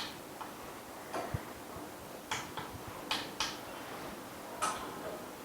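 Scattered light taps and clicks, about eight, irregularly spaced, from fingers tapping and handling an iPhone 6S LCD screen on an LCD tester while its touch response is checked, over a faint steady hum.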